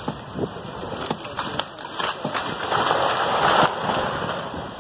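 Rain-like rushing water noise with scattered patters, swelling to a loud rush about three seconds in and easing off soon after.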